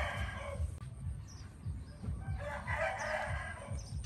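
A rooster crowing twice: the end of one crow in the first half-second, then a full crow of about a second and a half starting about two and a half seconds in. Small birds chirp faintly in between.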